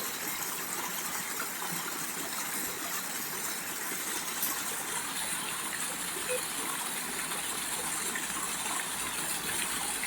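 A small waterfall, water pouring and rushing steadily into a shallow pool.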